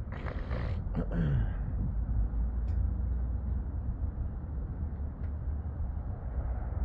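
A short breathy exhale and a click at the start, then a steady low rumble of wind on the microphone.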